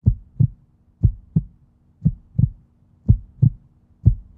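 Heartbeat sound effect: low double thumps, lub-dub, about one beat a second, over a faint steady hum.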